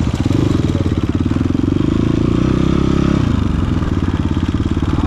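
Dirt bike engine running at idle with a steady rapid putter, louder and fuller for the first three seconds or so, then settling back.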